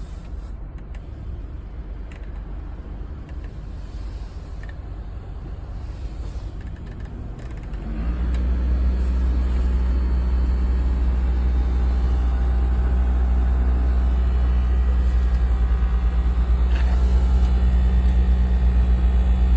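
Mazda Roadster running steadily, and about eight seconds in, as the air conditioning comes on, a loud low droning hum ("wooon") starts and holds. It is an unexplained noise from the air-conditioning system that the owner was told first calls for cleaning the AC blower.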